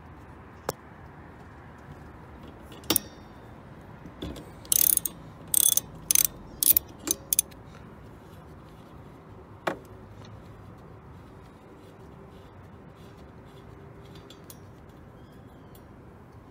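Socket ratchet wrench clicking as it unscrews a windshield wiper arm's retaining nut. A few single clicks come first, then a cluster of short, loud ratcheting runs a few seconds in, and a last click later.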